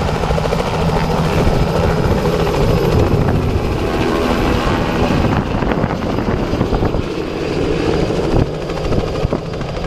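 Light helicopter lifting off and flying low past, its rotor chopping and engine running loud and steady.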